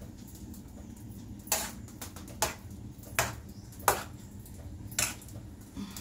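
Serving spoon knocking against the side of a metal cooking pot as it stirs soft cooked rice and milk for curd rice: about six short, sharp knocks, roughly one a second.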